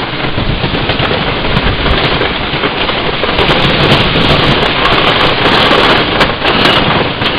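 Wooden roller coaster train rattling and clattering over the track at speed: a loud, dense clatter of rapid knocks over a steady rush of noise.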